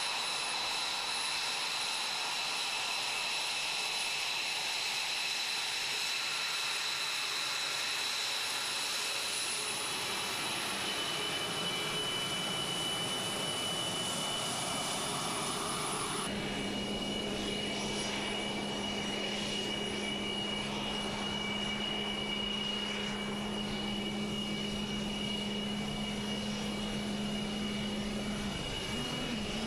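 Jet engines of an F-22 Raptor, its twin Pratt & Whitney F119 turbofans, running at taxi power: a steady whine of several high tones over a rushing hiss. About halfway through the sound changes suddenly to another recording of the engines, with a steady low hum added.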